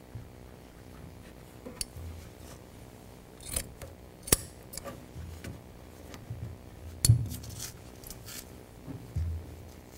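Upholstery scissors and a steel angle pick being worked and handled over jute carpet padding: scattered sharp metal clicks, the loudest about four and seven seconds in, among soft low thumps of the padding being pressed down.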